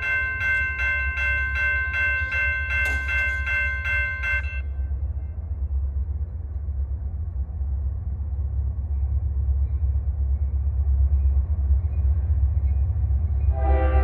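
Railroad grade-crossing bell ringing in rapid, even strikes, then stopping about four and a half seconds in. Under it a low rumble grows louder as a freight train approaches, and a locomotive's multi-tone air horn starts sounding near the end.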